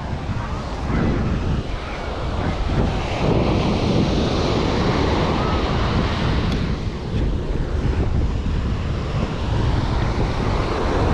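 Ocean surf washing onto a sandy beach, with wind buffeting the microphone. The low rumble is strongest, and it swells slightly about three seconds in.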